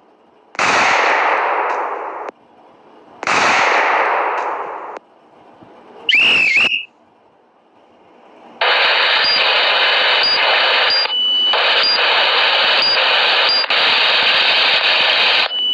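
Walkie-talkie prank app's sound effects: two loud bursts of noise that each start sharply and die away over about a second and a half, a short warbling radio chirp, then steady radio static hiss with a faint whine in it, broken by two brief dropouts.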